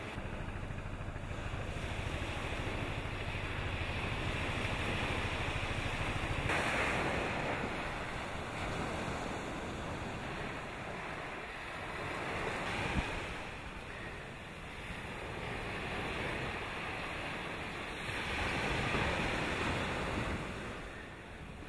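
Wind buffeting the microphone and sea waves, a rushing noise that swells and fades every few seconds, with a single sharp knock about halfway through.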